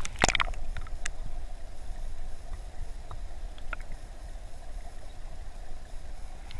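Flowing river water heard underwater through a submerged camera: a muffled, steady low rumble, with a cluster of sharp clicks in the first half-second and a few faint ticks later.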